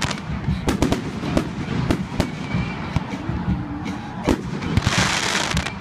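Aerial fireworks shells bursting overhead in a quick, irregular series of sharp bangs. A burst of hissing comes about five seconds in.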